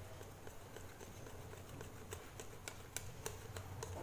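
Wire whisk beating jalebi batter in a glass bowl, the wires ticking quickly and irregularly against the glass, faint, over a steady low hum.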